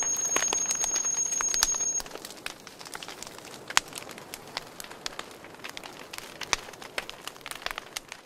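Wood campfire crackling and popping, with irregular sharp cracks and one louder pop about halfway through. A steady high-pitched whine sits over the fire for the first two seconds, then stops.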